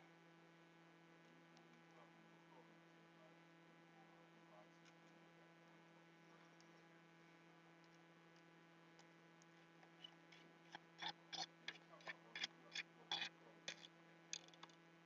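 Faint steady electrical hum, then about ten seconds in a quick run of about a dozen small sharp clicks, two or three a second, from a precision screwdriver working a screw on an iMac's CPU heatsink.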